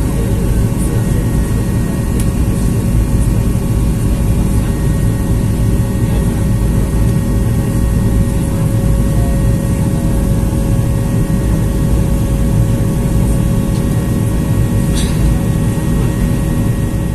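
Cabin noise of a Boeing 737-800 climbing after takeoff: a steady low rumble of its CFM56 turbofan engines and the airflow over the fuselage, with a faint steady hum.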